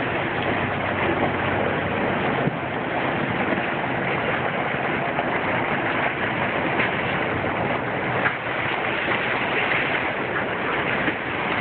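Steady rush of water and spray along the bow of a moving boat as it cuts through the sea.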